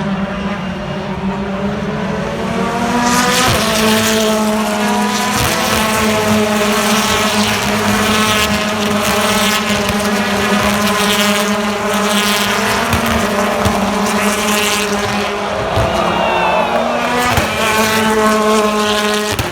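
BTCC touring cars racing, their 2-litre turbocharged four-cylinder engines revving hard with the pitch climbing and dropping through gear changes. Several engines overlap, and the sound gets louder about three seconds in.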